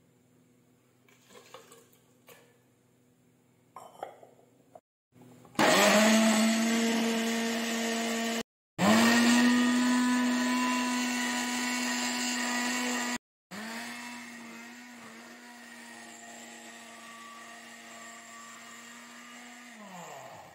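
Electric countertop blender grinding soaked dates, figs, almonds and cardamom in their soaking water. After a few faint clicks, the motor starts about five seconds in with a short rise in pitch and then runs at a steady pitch. It breaks off abruptly twice, runs quieter in the last stretch, and winds down with a falling pitch at the end.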